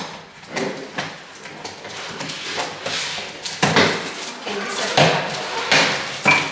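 Packaging being cut open with a kitchen knife and handled: irregular scraping, rustling and knocks, with louder bursts in the second half.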